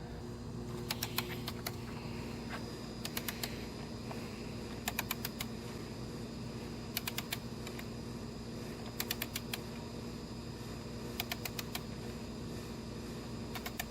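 Torque wrench ratcheting in short bursts of three to five clicks about every two seconds as intake manifold bolts are run down and torqued.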